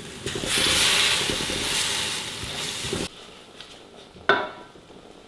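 Wet ground spice paste sizzling and being stirred in a hot non-stick wok with no oil or water, cutting off suddenly about three seconds in. A single sharp clack follows about a second later.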